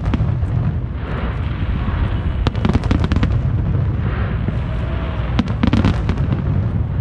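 Aerial fireworks shells bursting: a continuous low rumble of booms, with rapid clusters of crackling reports about two and a half seconds in and again about five and a half seconds in.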